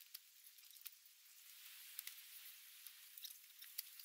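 Near silence: a faint outdoor hiss with scattered faint ticks and clicks.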